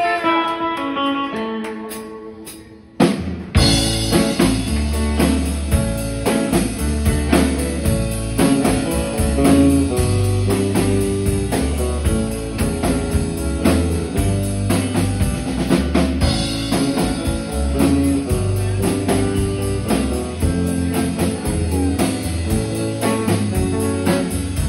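Live rock band: a held chord rings and fades for about three seconds, then drums, bass guitar and electric guitar come in together with a steady beat.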